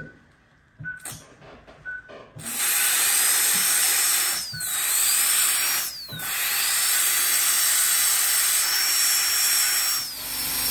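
High-speed dental drill cutting into a dog's tooth root. It starts about two and a half seconds in with a loud hiss and a high whine, stops briefly twice, and its whine falls each time it spins down. Before the drill starts, a short electronic beep sounds about once a second.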